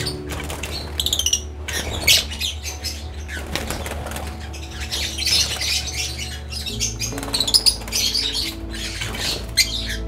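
Lovebirds flapping their wings in short bursts of flight, with a few sharp chirps, over soft background music.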